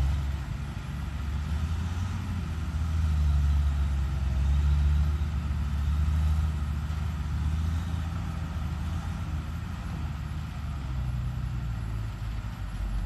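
Heavy diesel engine of a Hyundai HX210HD excavator running under working load, its low note swelling a few seconds in and easing again as the hydraulics are worked.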